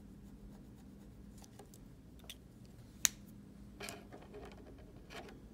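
Faint scratching of a colouring pen tip on paper, with light ticks, one sharp click about three seconds in and a short rustle just before four seconds.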